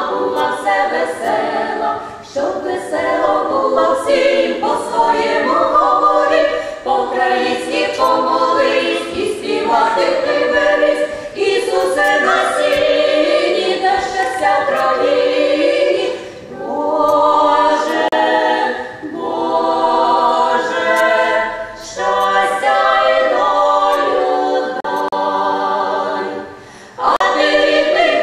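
Women's vocal ensemble of five singing a Ukrainian Christmas carol (koliadka) a cappella, in several harmonised parts, in phrases of held notes with short breaks between them, the longest break near the end.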